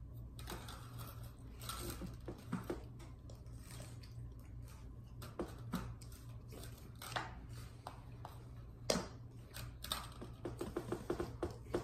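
Light, irregular clicks and knocks of a spoon against a soup bowl while eating, with a quick run of small ticks near the end, over a steady low hum.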